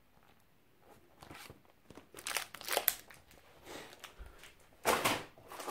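Paper assembly instructions being handled, crinkling and rustling in irregular bursts, with the loudest rustle near the end.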